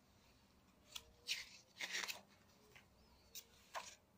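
Page of a paper picture book being turned by hand and laid flat: a few faint, short paper rustles and taps.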